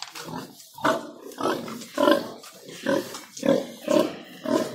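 Pigs grunting, a regular run of about seven short grunts roughly every half second.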